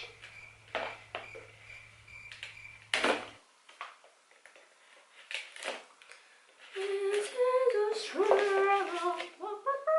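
A voice humming a short tune of stepped notes from about seven seconds in, after a few seconds of light scattered clicks and taps.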